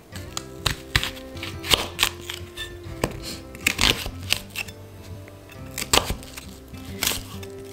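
Kitchen knife cutting through a peeled onion and knocking on a bamboo cutting board, in irregular strokes, over background music.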